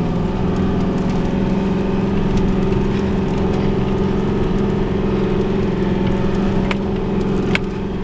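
Car engine running steadily as the car drives slowly through snow across a field, heard from inside the cabin as an even drone. A couple of light clicks near the end.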